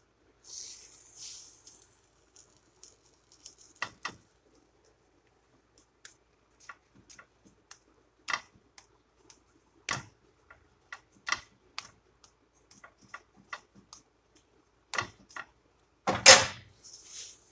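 A slotted metal spatula clicking and tapping against a pan as a quesadilla is folded and pressed, in scattered light knocks. There is a short scraping hiss near the start and a louder clatter near the end.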